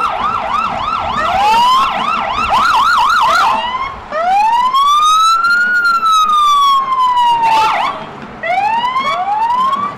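NYPD police siren, first on a fast yelp of about three sweeps a second, then switching to one long wail that rises and slowly falls, then back to a brief yelp and a few slower sweeps near the end.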